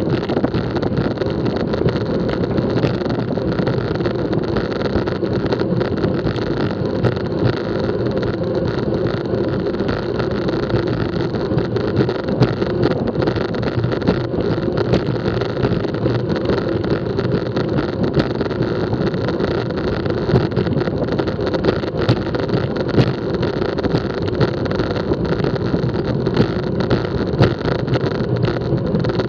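Steady rush of wind over a bike-mounted action camera's microphone, mixed with the hum of road-bike tyres on asphalt, riding at speed in a bunch of cyclists.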